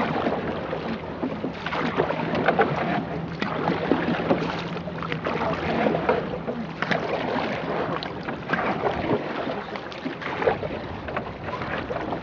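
Paddled boat on open water: splashing and rushing water with irregular sharp splashes, and wind buffeting the microphone.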